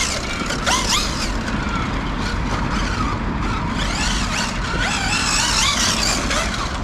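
Brushless electric motor and drivetrain of a big 1/5-scale RC truck whining, the pitch rising and falling repeatedly with the throttle, over a steady low rumble. The hard stock tyres are losing grip on the tarmac.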